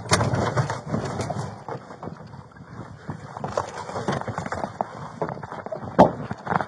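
Running footsteps and gear jostling, heard through a body-worn camera, as a sheriff's deputy hurries on foot along a road verge. Sharp knocks come at the start and again about six seconds in.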